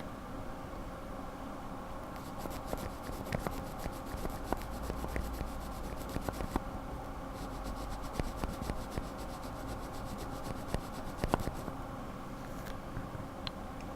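Lubed linear mechanical keyboard switches being pressed, the stems sliding with a scratchy rubbing sound and scattered light clicks.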